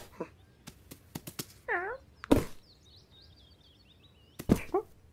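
Cartoon cat sound effects: a few light taps, a short cat call that dips and rises in pitch, then a thump about two seconds in, the loudest sound. Near the end comes another thump with a brief cat sound. Faint birdsong twitters in between.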